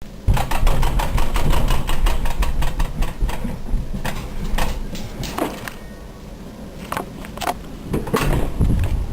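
Wind buffeting the microphone in a snowstorm, a deep irregular rumble. Over it comes a run of clicks and knocks, rapid for the first few seconds and then a handful of sharper ones.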